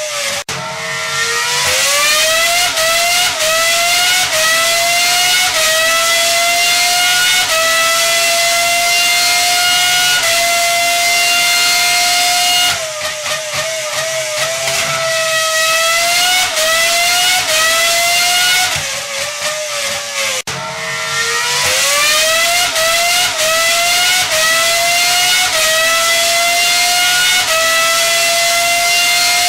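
Engine revving at high pitch, accelerating with its pitch climbing in steps with short dips between them. It falls back and climbs again twice, about 13 and 20 seconds in.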